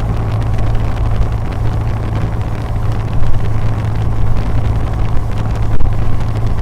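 Cessna 150's four-cylinder Continental O-200 engine and propeller droning steadily, heard from inside the cockpit, with a strong low hum under a rush of noise.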